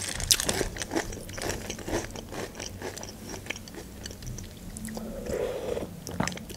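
Close-up chewing and crunching of chocolate cereal balls in milk, with many short crackly bites. A metal spoon scoops from a glass bowl, and a spoonful is taken near the end.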